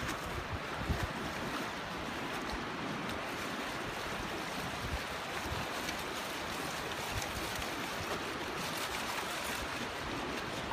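North Sea surf washing over a flat sandy beach, a steady rushing noise, with wind buffeting the microphone in uneven low gusts.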